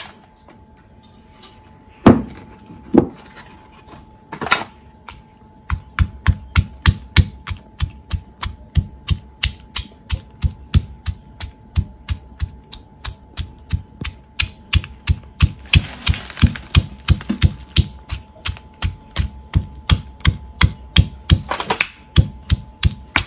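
Stone pestle pounding chillies, garlic, shallots, dried anchovies and belacan in a stone mortar to make sambal. A few separate knocks come first, then from about six seconds in a steady rhythm of about three thuds a second.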